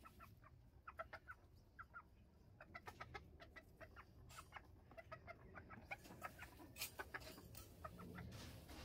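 Hen clucking quietly, a steady run of short, soft clucks.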